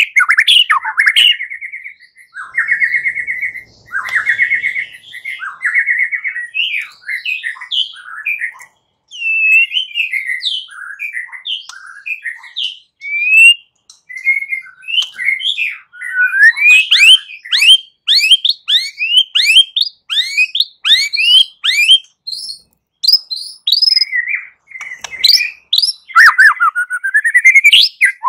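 White-rumped shama (murai batu) singing a loud, fighting-style song: sustained warbling phrases at first, then a fast run of quick sweeping notes with short pauses.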